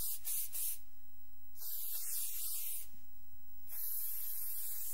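Pepper spray hissing out of a canister in long blasts, about three of them, broken by short gaps.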